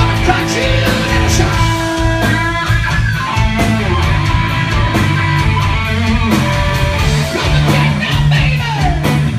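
Live rock band playing a boogie blues-rock number: electric guitar over bass and drums, with sliding guitar notes near the end.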